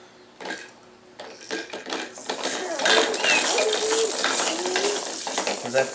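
Fisher-Price baby jumper rattling and clattering as the baby bounces in it: the frame, springs and toy tray clicking fast over and over, getting dense and loud from about two seconds in and stopping near the end.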